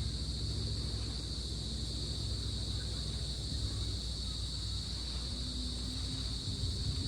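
Crickets chirring in a steady, high chorus over a low, constant rumble.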